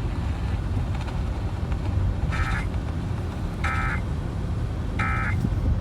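Steady low road and engine rumble inside a moving car. In the second half come three short buzzy beeps about a second and a half apart.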